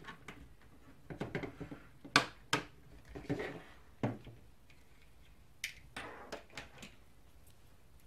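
Handling noises: cables rustling and a SATA connector being pulled off a 2.5-inch laptop hard drive, with a string of sharp clicks and knocks on a hard countertop, the loudest about two seconds in.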